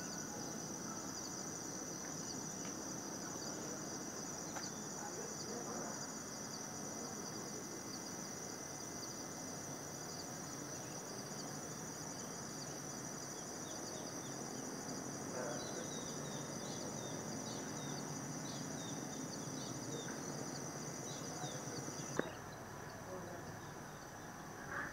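Steady high-pitched chorus of insects, with short chirps over it in the second half. A single sharp click comes near the end, where the chorus drops off.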